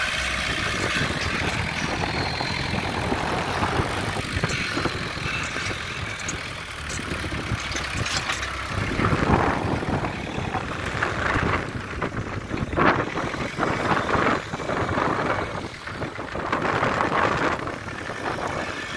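Engine of a homemade 4x4 tractor running as its front-loader grapple bucket digs out and lifts a shrub. From about nine seconds in come irregular louder bursts with crackling and knocks as the bucket tears the bush out.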